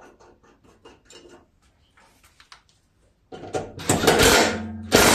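Tool noise from tightening a mower blade bolt. Light quick clicks, several a second, like a ratchet, run for about three seconds, then a loud harsh rattling noise starts and carries on.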